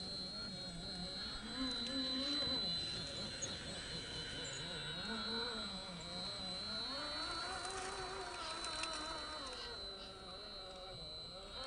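Brushless 2200kv 540 electric motor and geared drivetrain of a GMADE BOM RC rock crawler whining, the pitch rising and falling with the throttle as the truck crawls over rock. A steady high-pitched whine sits underneath.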